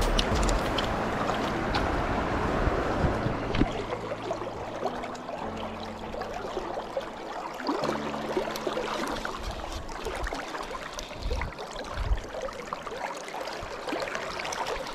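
Moving river water splashing and lapping close by, with scattered small clicks and knocks.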